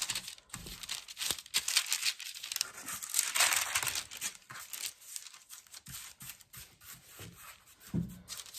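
Baking paper crinkling and rustling under hands pressing and shaping soft dough logs on a lined baking tray: irregular scattered crackles, busiest about three and a half seconds in.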